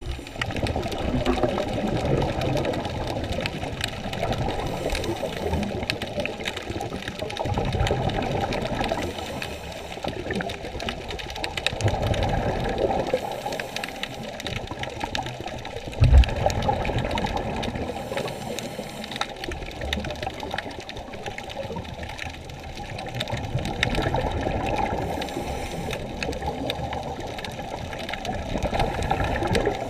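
Muffled underwater sound picked up by a camera in its waterproof housing: water sloshing and rumbling that swells and fades every few seconds, with one sharp knock about 16 seconds in.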